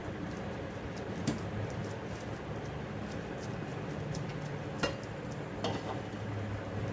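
A spoon clinking against a cooking pan three times, with faint scattered ticks over a steady low hum.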